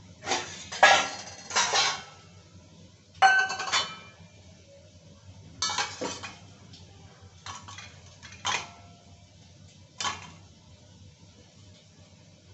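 Steel cookware and utensils clanking and clinking in about six short bursts of ringing metallic strikes, loudest in the first two seconds.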